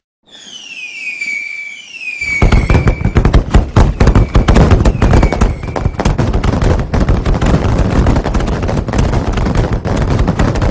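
Fireworks: a few whistles falling in pitch and then holding, then from about two seconds in a dense, rapid crackle of bangs that runs on, as from a string of firecrackers.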